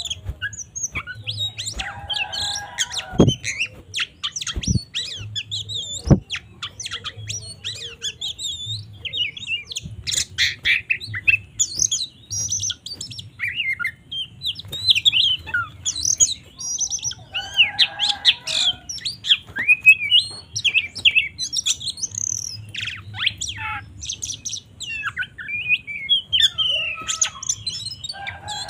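Oriental magpie-robin (kacer) singing a fast, varied song of whistles and chirps, broken three times by a harsher, buzzy call. A few sharp clicks a few seconds in.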